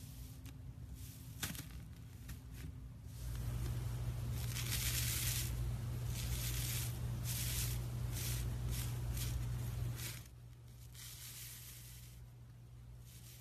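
Iceberg slime being handled: its crusted top layer crackles and the slime squishes in irregular bursts, loudest through the middle, over a steady low hum.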